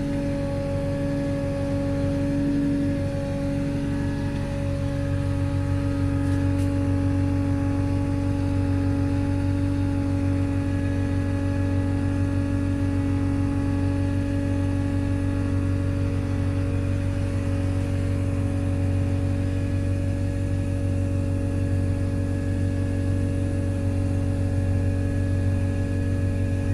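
Diesel engine of a Caterpillar CW34 pneumatic-tyred roller running at a steady speed while the machine works, heard from inside its cab: an even low hum with a constant drone over it.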